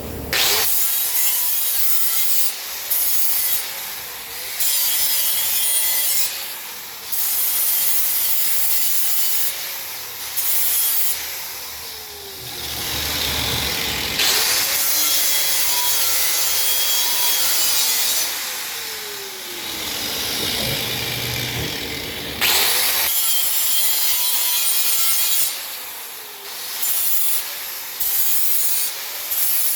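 Repeated rasping, scraping strokes, each one to two seconds long, over a running motor whose pitch sags and drops several times.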